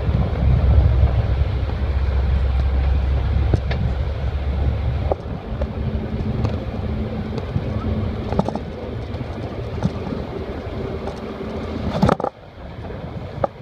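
Wind buffeting the microphone over the running noise of a moving open-top sightseeing bus. The low rumble is heavy at first, then gives way to a steadier hum, and a sharp knock comes about twelve seconds in, after which it is quieter.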